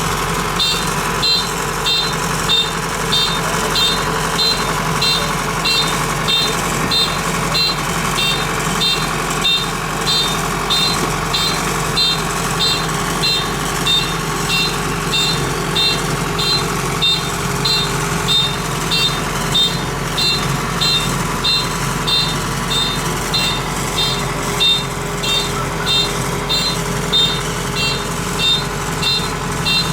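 Kubota DC-93 combine harvester's diesel engine running steadily, with its warning beeper sounding a high beep about twice a second.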